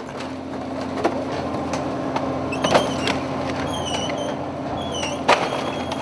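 Steady engine hum with plastic fish crates knocking and clattering as they are handled. There is a sharp knock about five seconds in, and a few short high squeaks in the middle.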